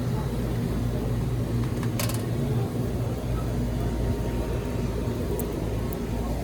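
A steady low mechanical hum, like a running motor or appliance, with a light click about two seconds in.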